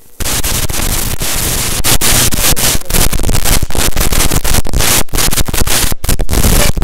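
Harsh noise music: a loud, dense wall of static and crackle that starts abruptly and is broken by a few brief dropouts.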